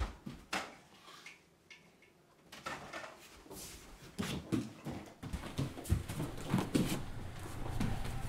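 A couple of sharp clicks, like a door latch, then a person moving hurriedly through a small room: a run of uneven footfalls, thumps and rustles.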